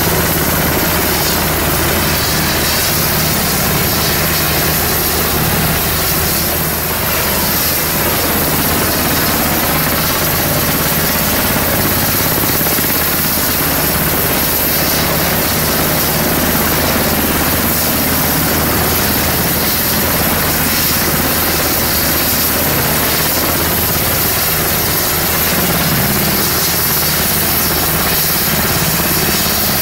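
MH-60S Seahawk helicopter's twin turboshaft engines and rotor running steadily, with a thin high whine over the dense noise.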